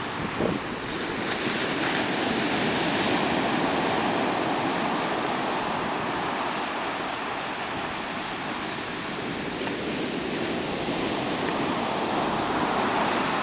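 Ocean surf breaking and washing up the beach: a steady rush of water that swells about two seconds in, eases off midway and builds again near the end.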